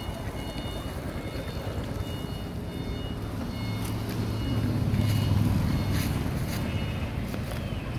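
Low engine rumble of a passing motor vehicle, swelling to its loudest about halfway through and then easing. Faint steady high tones sound over it in the first few seconds.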